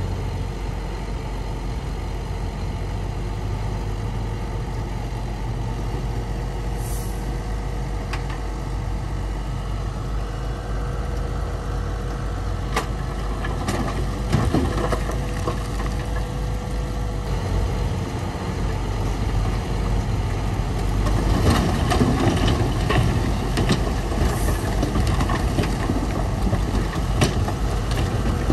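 Heavy diesel earthmoving machinery running steadily with a low rumble, with a thin steady whine over it for the first half or so. Scattered clanks and knocks come in about halfway through and again in the last third.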